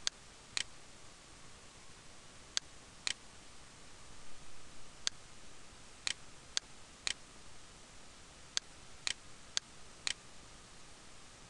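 Computer mouse clicking: about a dozen sharp single clicks at irregular intervals, several of them about half a second apart, over a steady faint hiss.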